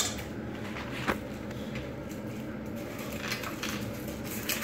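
A few light clicks and knocks of a spoon against a pot as a small child stirs, spaced out with a sharper one about a second in.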